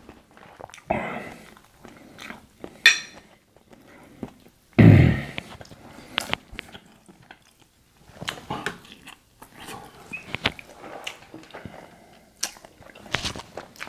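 Close-up eating sounds: wet chewing, lip smacks and small clicks as seafood-boil food is dipped in butter sauce and eaten, with a louder brief sound about five seconds in.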